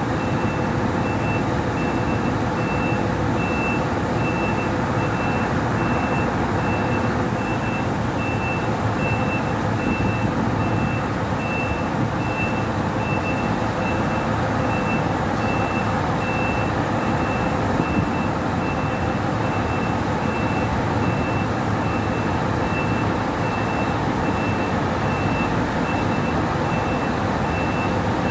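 Truck reverse alarm giving a steady run of high, evenly spaced beeps as a Scania 164L 580 V8 backs up, over the steady rumble of its V8 diesel engine.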